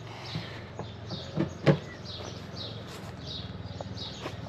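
A small bird chirping over and over, about twice a second, over a steady low mechanical hum, with a few sharp clicks.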